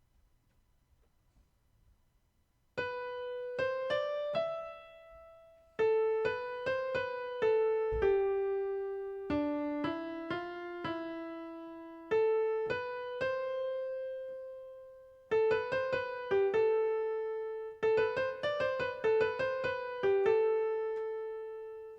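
Yamaha PSR-E203 keyboard on a piano voice playing a slow improvised melody, one note at a time, with no beat or rhythm backing. It begins about three seconds in, and the notes ring and fade, with short pauses between phrases.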